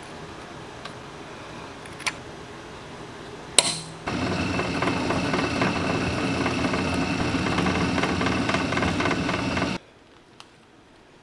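A few sharp clicks of metal parts being handled, then a drill press runs steadily for about six seconds, drilling a hole through an aluminum bar, and stops abruptly near the end.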